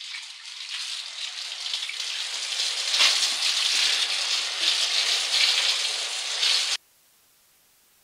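A crackling, hissing noise effect, like static or sizzling, that swells up, grows louder about three seconds in, then cuts off abruptly near the end, leaving near silence.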